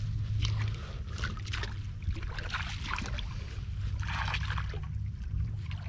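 Water sloshing and splashing in several irregular bursts, over a steady low hum.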